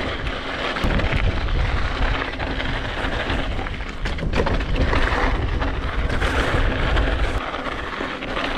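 Specialized Pitch hardtail mountain bike rolling fast down a loose dirt trail: tyres crunching on dry gravel and the bike rattling over small bumps, under a heavy rumble of wind buffeting the GoPro's microphone.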